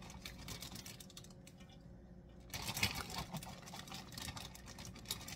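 Plastic zip-top bag crinkling and rustling as chopped onion is scooped out of it with a plastic measuring cup: a run of small, quick crackles that pauses for about a second early on, then picks up again more densely.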